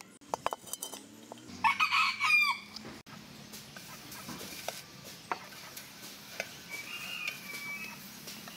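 A rooster crows once, loudly, about a second and a half in. Before it come a few sharp clicks, and afterwards scattered light taps of a metal spoon on a steel wok, with a fainter bird call near the end.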